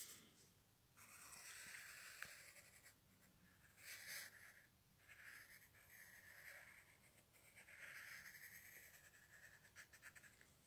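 Faint scratching of a pen drawing on paper, in several strokes each a second or two long.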